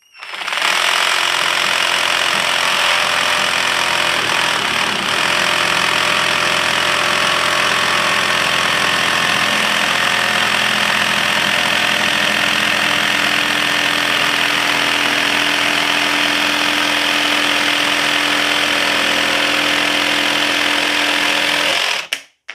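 Cordless jigsaw sawing straight through 3/4-inch marine plywood in plain up-and-down mode, with the orbital (pendulum) action off. The blade runs with a loud, steady buzz that starts about half a second in and stops abruptly near the end.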